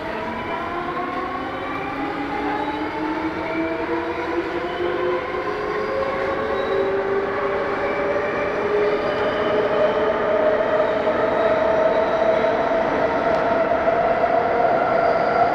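Vagonmash S81 metro car's DK-117 traction motors whining as the train accelerates out of a station, heard from inside the car. Several tones climb steadily in pitch and the sound grows louder throughout.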